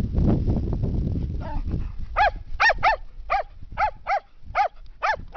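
A dog whining in a string of short, high yips that rise and fall in pitch, about eight of them in quick succession, starting about two seconds in after a low rumbling noise.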